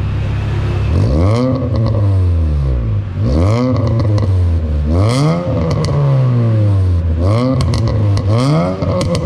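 Honda Brio's four-cylinder engine heard through a Saiso R aftermarket muffler, idling and then revved about four times in a row. Each time the pitch climbs quickly and sinks back toward idle.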